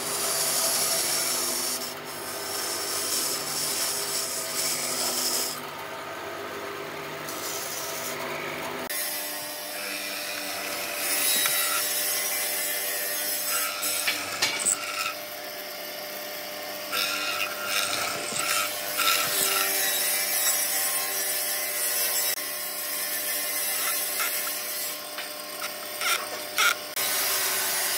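A band saw runs as it cuts a curve through a softwood block. About nine seconds in, the sound changes to a hollow-chisel mortiser: its motor runs steadily, with several louder bursts as the square chisel plunges and bores into the wood.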